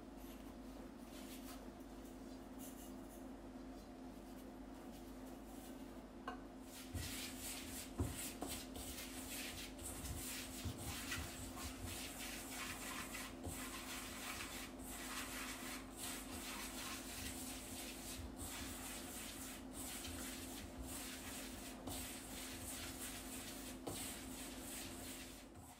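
Flour for mochi being mixed by hand in a stainless steel bowl: a dry, continuous rubbing and scraping that starts about seven seconds in, with a few light knocks against the bowl. A steady low hum runs underneath.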